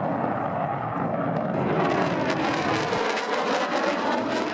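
Lockheed Martin F-35A Lightning II's single Pratt & Whitney F135 jet engine, heard as a loud, steady rushing noise. About a second and a half in, the noise takes on a harsher, crackling edge.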